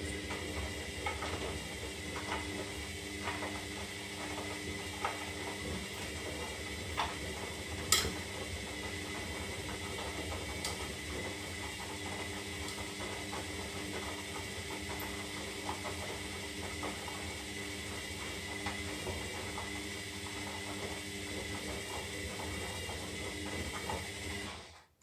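Zanussi Lindo 300 washing machine running through its synthetic wash cycle: a steady motor hum with a high whine and hiss, and scattered clicks, one sharper about eight seconds in.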